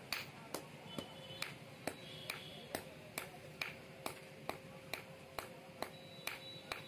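Blacksmith's hand hammer striking red-hot steel on an iron anvil in a steady rhythm, a little over two blows a second, each blow leaving a short metallic ring. The hot bar is being forged into a sickle blade.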